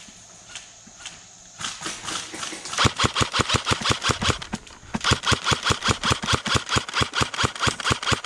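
Airsoft gun firing a fast string of shots, about five a second, starting about three seconds in, with a short pause midway.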